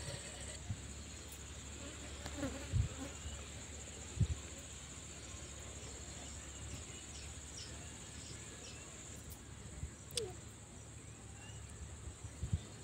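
Steady high-pitched chirring of insects, with a few soft knocks now and then.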